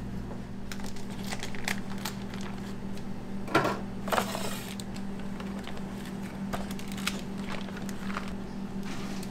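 A vacuum-sealed plastic bag crinkles as it is handled, in two loud crackly bursts about three and a half seconds in. Scattered small clicks and taps sound over a steady low hum.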